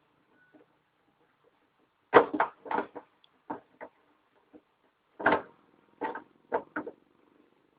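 Irregular clicks and knocks of hands and tools working on a television's casing, in a quick cluster about two seconds in and another from about five seconds in.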